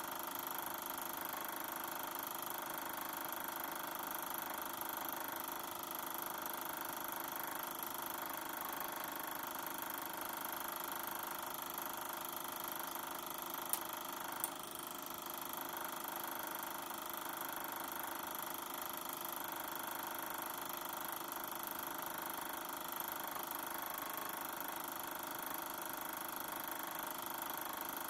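Super 8 film projector running steadily with the film shown silent: a constant mechanical running noise with several steady tones. Two sharp clicks less than a second apart come about halfway through.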